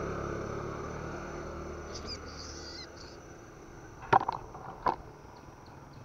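A passing vehicle's engine hum fading away over the first few seconds. About two seconds in comes a short burst of high bird chirps, then two sharp knocks about four and five seconds in.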